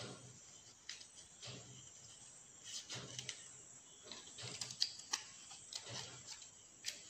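Coloured paper being handled and folded by hand: faint, irregular rustles and crinkles with a few sharper clicks.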